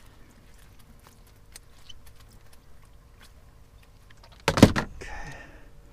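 Small scuffs and ticks of a bait shiner being handled in a landing net on a fibreglass boat deck, with one loud thump about four and a half seconds in, then a brief scuffle. A faint steady hum runs underneath.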